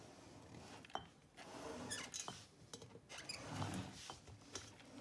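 A black tray being turned by hand on a wooden table: faint scraping and rubbing, with a few small sharp clicks scattered through.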